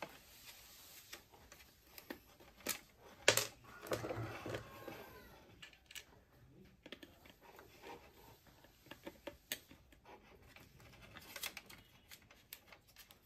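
Scattered small clicks and taps of a screwdriver and plastic parts as wires are handled at a mixer grinder's overload switch, the sharpest click about three seconds in.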